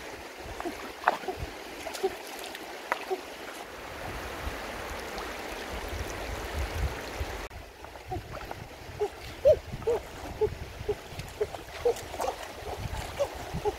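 Shallow stream running over rocks, with many small water splashes and plinks as hands feel about among the submerged stones. A low rumble sits under the first half, and the sound changes abruptly about halfway through.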